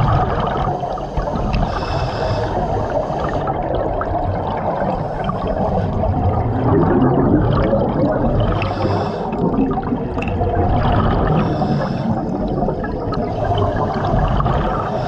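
Underwater gurgling and rushing of air bubbles around a diver's helmet.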